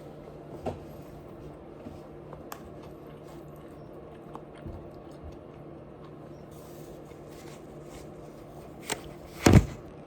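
A person eating: a few small clicks and mouth noises over a steady low hum, then a sharp click and a loud, short sound near the end.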